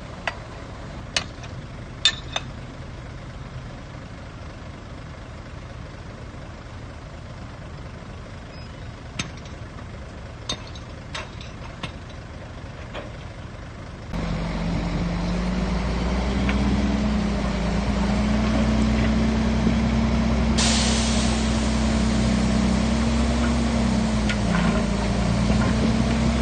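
Heavy diesel earthmoving machinery at work: a low engine rumble with scattered sharp metallic clanks. About fourteen seconds in, a diesel engine suddenly becomes much louder and steady. A little after twenty seconds a truck's air brake gives a short hiss.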